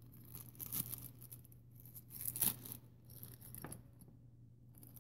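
Small clear plastic parts bag being pried open and handled: faint crinkling and rustling with a few short crisp ticks, the sharpest about halfway through.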